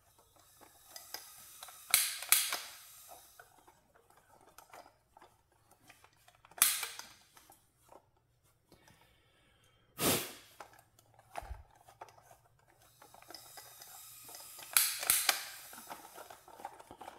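A Quickfire trigger-start torch being triggered over and over and failing to stay lit: separate sharp clicks with short bursts of hiss, two close together about two seconds in, single ones several seconds apart after that, and a quick cluster near the end.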